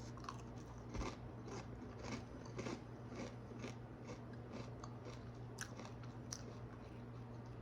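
Someone chewing crunchy rice crisps: faint, irregular crunches, a little stronger in the first few seconds.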